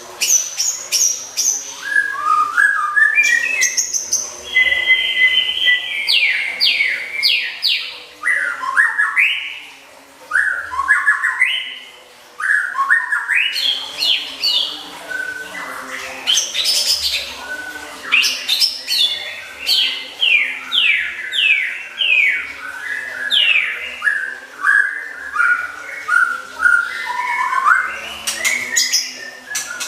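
Songbird song from a masteran tutor recording: quick, varied phrases of sliding whistles, trills and repeated chips, broken by a couple of short pauses, over a faint steady hum.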